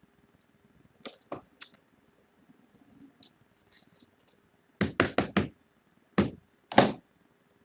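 Thick trading cards being handled and tapped down on a table. A few light clicks come first, then a quick run of four knocks about five seconds in and two more shortly after.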